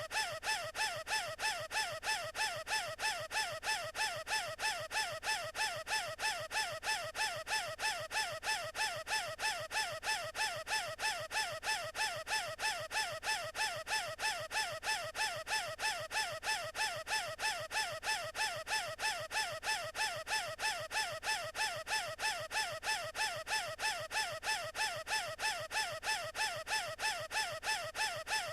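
An animated character's high-pitched, squeaky wheezing breath, looped over and over at an even rate of about two wheezes a second: a cartoon gasp of someone struggling for air.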